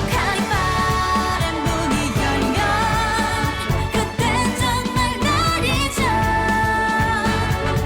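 K-pop song playing: a singer holds long notes over a dense pop backing track with a steady beat.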